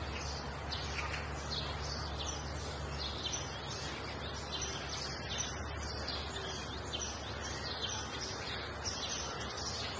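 Many small birds chirping in a dense, continuous chorus over steady outdoor background noise.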